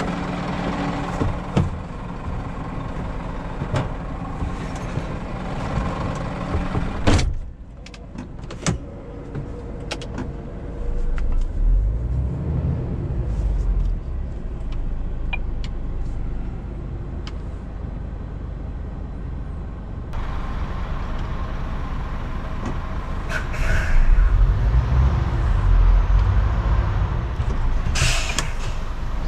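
Scania R410 truck's 13-litre six-cylinder diesel idling, with a thump like a door shutting about seven seconds in. Twice the engine's low rumble swells as the driver tries to move the rig stuck in snow, and a short hiss comes near the end.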